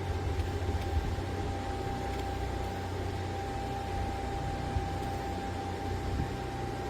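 Steady background hiss and low hum with a thin, steady high whine running through it.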